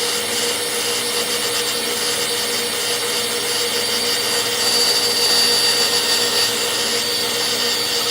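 Electric heat gun running steadily, its fan blowing hot air with a constant hum and a high whine that grows stronger about halfway through, as it heats a phone's back cover to soften the adhesive.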